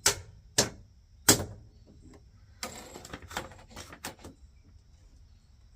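Several sharp knocks and clicks: three loud ones in the first second and a half, then a short scuffle and a few lighter clicks near the middle.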